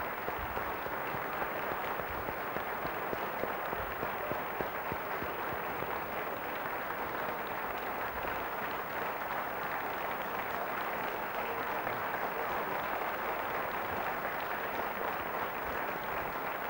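Large theatre audience applauding after a song: a dense, steady clatter of many hands clapping.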